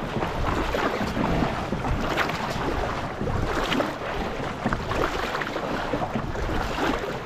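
Water splashing and lapping around a kayak on a river, with scattered small splashes and wind rumbling on the microphone.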